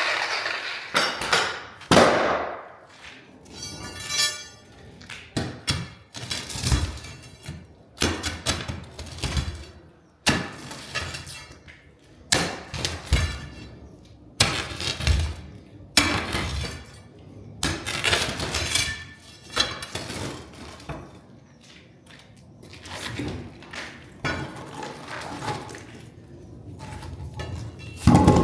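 Pieces of broken-up concrete slab crashing and clinking against one another, in a string of separate crashes about every second or two.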